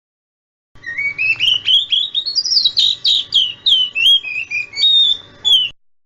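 Oriental magpie-robin (kacer) song: a quick series of rising whistled notes, then varied chirps and whistles. It starts about a second in and cuts off shortly before the end. This is a lure recording, played to make young magpie-robins answer.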